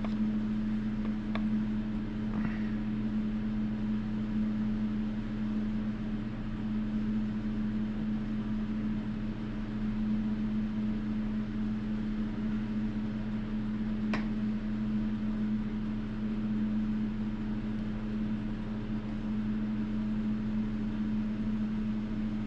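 A steady machine hum with a constant low pitch, broken by two faint clicks, one about a second in and one about fourteen seconds in.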